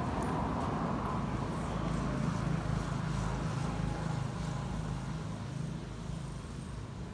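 Low, steady rumble of a motor running, louder through the middle and easing off toward the end.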